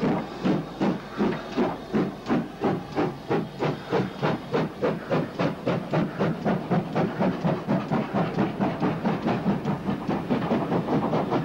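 Steam tank engine working hard as a banker, pushing at the rear of a passenger train up a steep gradient: sharp, regular exhaust beats with hiss, about three a second, quickening slightly.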